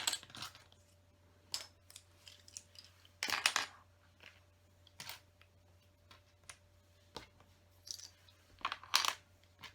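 Plastic LEGO pieces clicking and rattling as they are picked out and handled, in scattered short bursts, the biggest about three seconds in and another near the end.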